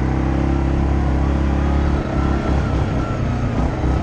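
ATV engine running steadily under throttle on a dirt trail; about halfway through the steady engine note eases off and turns uneven.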